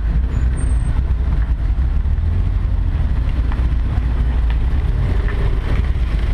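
Car engine and road noise as the car rolls slowly in a queue, heard from a camera mounted on the car's outside bodywork: a steady, heavy low rumble.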